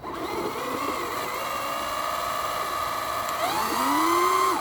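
Battery-powered RC car's electric motor whining under power, a steady tone that rises in pitch near the end and then cuts off suddenly.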